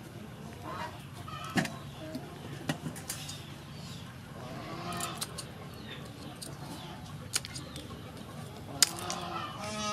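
Sharp clicks and cracks as raw blue crabs are pulled apart and snipped with kitchen scissors. Hens cluck now and then in the background.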